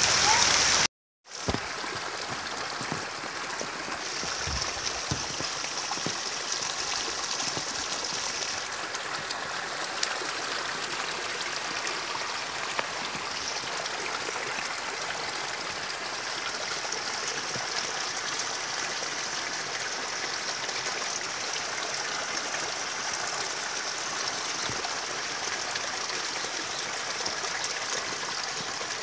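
Muddy rainwater runoff rushing steadily along a dirt channel in a heavy downpour.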